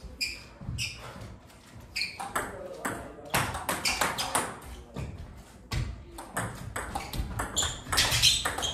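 A celluloid-type table tennis ball bouncing on the table and being struck by bats: a few separate pings at first, then about two seconds in a quick back-and-forth rally of sharp pings.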